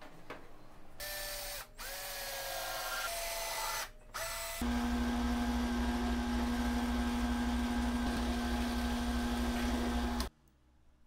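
Drill press motor running and a drill bit boring into plywood: a loud steady hum that cuts off suddenly near the end. Before it, from about a second in, a few short choppy snippets of a higher-pitched power tool.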